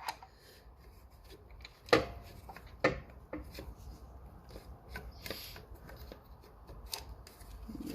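Hands working on a mitre saw's dust-extraction parts: scattered light knocks and clicks with some rubbing and rustling, the sharpest knock about two seconds in.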